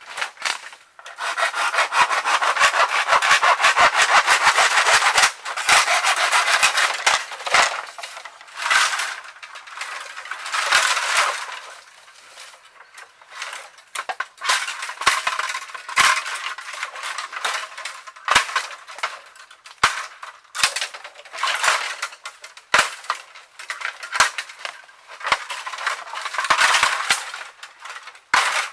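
Dry bamboo being cut and handled: a dense rasping run in the first few seconds, then shorter bursts of scraping and rustling with many sharp cracks and clicks.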